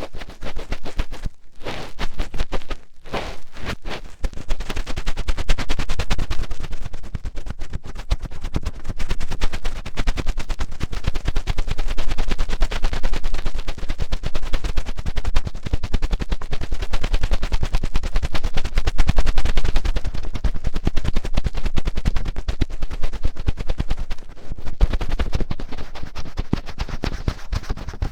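Fingertips digging and rubbing deep inside an ASMR ear microphone, making rapid loud crackles and scrapes with a low rumble. The strokes are separate at first and run together from about four seconds in.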